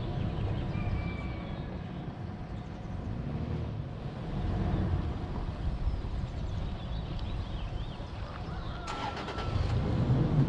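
Four-wheel-drive vehicle's engine running with a steady low rumble.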